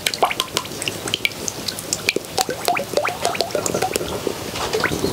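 Coconut oil poured in a steady stream from a plastic bottle into a black iron kadai, with a continual patter of small drips and splashes.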